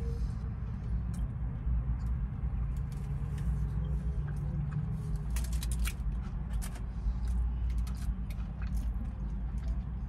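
Close-miked eating sounds, chewing with wet mouth clicks and smacks, scattered through and busiest about halfway, over a steady low rumble inside the car.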